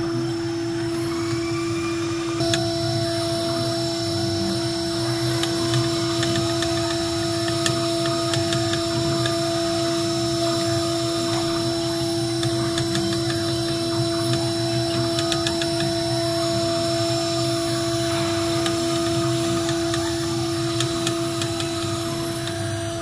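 CNC router spindle running with a steady whine while a small end mill carves a wooden log turning on the 4-axis rotary, with rough cutting noise and scattered chip clicks. Higher whines from the axis drive motors rise, hold and fall again as the machine moves.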